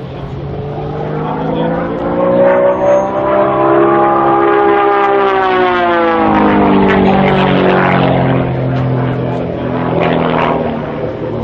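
Pitts aerobatic biplane's piston engine and propeller running hard through aerobatic manoeuvres. The buzzing engine note climbs in pitch over the first few seconds, peaks near the middle, then sinks back and holds steady.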